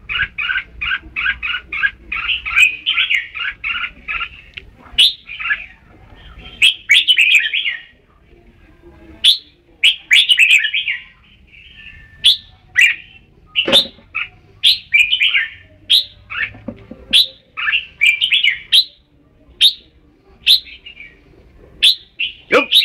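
Red-whiskered bulbul singing: short, bright phrases of chirps and whistles repeated with brief pauses, opening with a quick run of notes.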